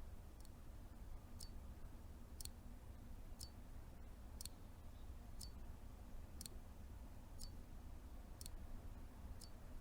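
A clock ticking quietly and evenly, one tick a second, over a low room hum.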